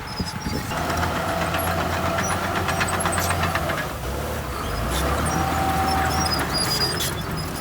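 Heavy diesel earthmoving machine running under load: a steady low engine drone with a whining tone that comes and goes, and rapid metallic clanking over it.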